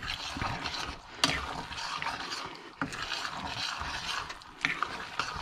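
Spoon stirring thick macaroni and cheese in a stainless steel saucepan, scraping and clinking irregularly against the pot, with a few sharper knocks.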